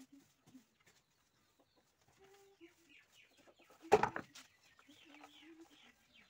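A chicken clucking in short, repeated low notes, over the soft swish of a broom sweeping a mud floor. One sharp knock or clatter about four seconds in is the loudest sound.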